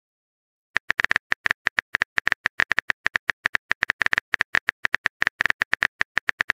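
Typing sound effect: rapid, irregular keyboard-tap clicks, several a second, starting a little under a second in, as a chat message is being written.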